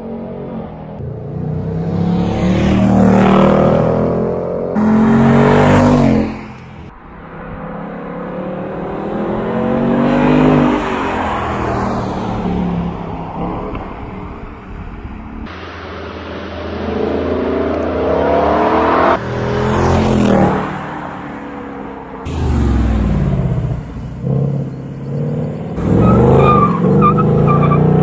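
Ford Mustang GT's 5.0 V8 accelerating hard several times. The pitch climbs with the revs, then drops sharply at gear changes and falls away as the car goes past.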